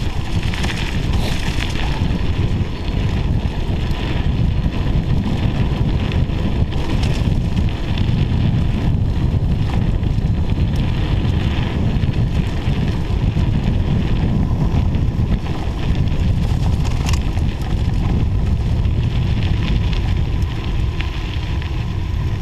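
Wind buffeting the microphone of a bicycle rider on a downhill run, with a steady rush of moving air and riding noise throughout.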